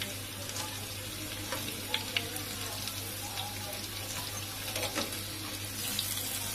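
Cornflake-coated chicken doughnuts deep-frying in hot oil in a pan, a steady sizzle with a few light clicks about two and five seconds in.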